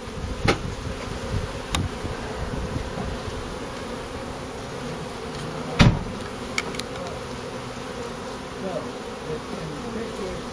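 A honeybee colony buzzing steadily as its comb is moved into a hive box, with a few light taps and one louder knock about halfway through.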